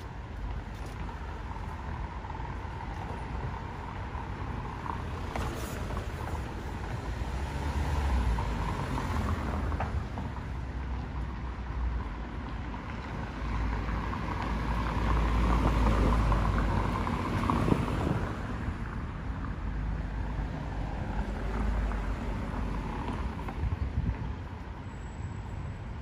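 Road traffic running steadily, cars passing with a low rumble underneath, swelling louder about a third of the way in and again at its loudest a little past the middle.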